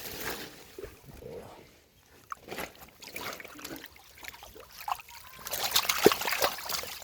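Shallow water sloshing, trickling and splashing as hands work through it, in irregular bursts that grow busier and louder near the end.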